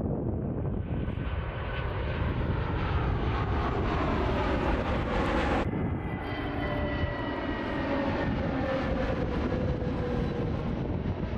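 Airliner's engines as the aircraft passes close by: a steady rumble with a rising high hiss that drops away suddenly about halfway through, after which the engine tones slide down in pitch as it moves away.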